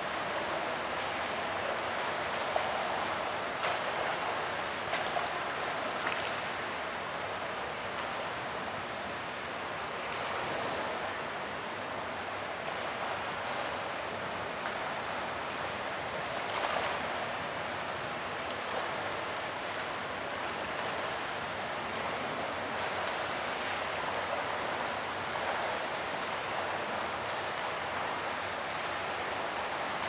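Fountain water splashing and rushing steadily, with a few brief louder splashes near the start and partway through.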